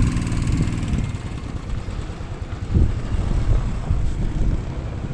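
Motorcycle in neutral with its engine idling as it rolls slowly backward down the slope, a low steady rumble.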